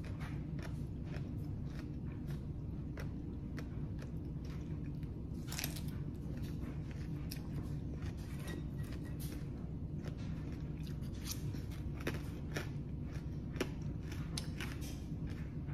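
A person chewing crunchy food close to the microphone, green papaya salad and raw vegetables, with many short, irregular crisp crunches over a steady low hum.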